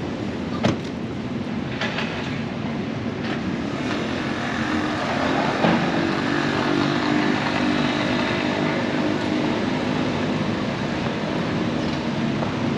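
City street traffic with a vehicle passing, its low hum swelling about a third of the way in, and a few sharp clicks or knocks.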